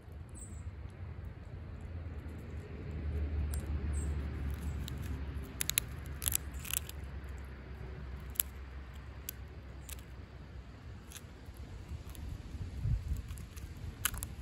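Striped skunk eating peanuts from a plate, with scattered sharp crunches as it bites into them: a cluster about six seconds in, then single ones. A low steady rumble runs underneath.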